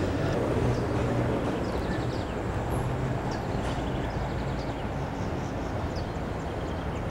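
Steady outdoor background noise with a low hum that fades over the first couple of seconds, and a few faint, short high chirps.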